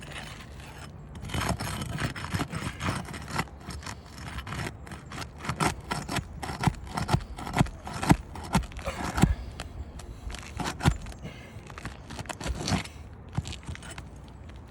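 Asphalt shingles being pried up and unsealed from the roof: irregular scraping with many sharp cracks and knocks, starting about a second in, as the sealed shingles tear loose around their nails.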